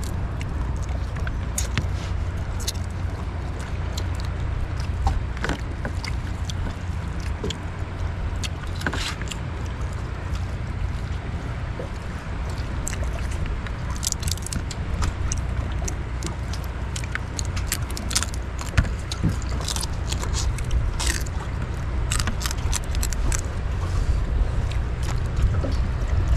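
Boiled crab shells being cracked and broken apart by hand while eating: irregular sharp cracks and clicks over a steady low rumble.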